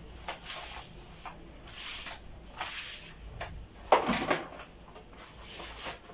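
A sheet of wallpaper rustling and crackling in irregular swells as it is handled and held up against a wall, with one sharp click about four seconds in.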